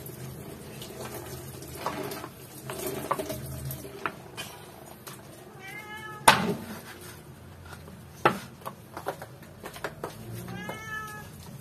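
A cat meowing twice, once about halfway through and again near the end, amid the chopping of a cleaver through raw chicken on a wooden cutting board. The two hard cleaver strikes, one right after the first meow and another about two seconds later, are the loudest sounds.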